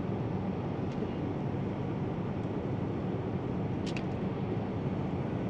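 Boeing 787-9 airliner cabin noise in cruise: a steady, even low rumble and air rush, with a light click just before four seconds in.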